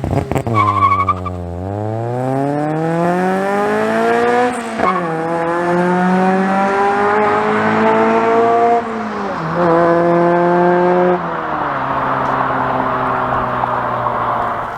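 Acura Integra GSR's B18C four-cylinder VTEC engine, through a freshly redone exhaust, revving up hard through the gears: the pitch climbs, drops at an upshift about five seconds in, climbs again, drops at a second upshift about nine and a half seconds in, then holds steady as the driver eases off.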